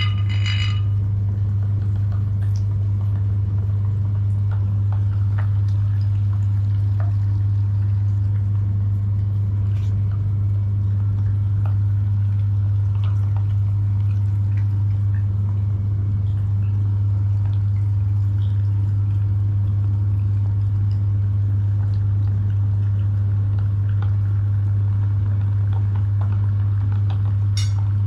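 Electric meat grinder running steadily, a constant low motor hum with a few faint clicks scattered through it.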